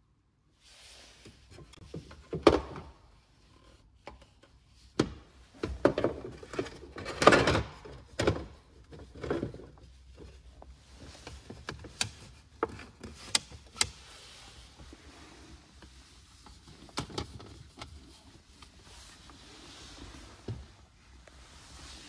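Hard ABS plastic console tray and trim pieces being handled and pressed into place in a car's cabin: irregular knocks, clicks and thunks, the loudest bunched in the first half.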